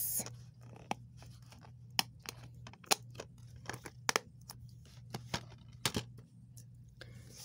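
Plastic DVD case being handled and closed: a scatter of sharp clicks and light scrapes, over a faint steady hum.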